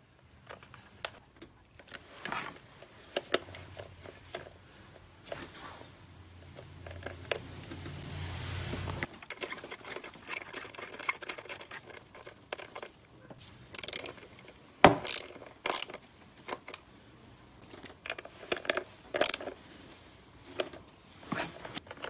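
Ratchet and 10 mm socket clicking and knocking on the ignition coil hold-down bolts as the coils are secured, in scattered short bursts with one sharper knock about fifteen seconds in. A low steady hum runs underneath for the first nine seconds and stops suddenly.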